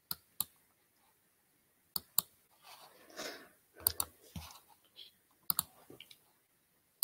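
Computer mouse clicking: several pairs of sharp clicks spaced a second or two apart, with faint rustling in between. The sound cuts off abruptly at the end as the recording stops.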